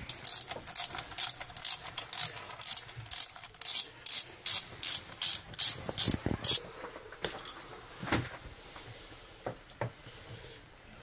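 Hand ratchet wrench clicking in quick back-and-forth strokes, about two a second, while a spark plug is unscrewed from the engine. The clicking stops after about six and a half seconds, with a few single clicks later.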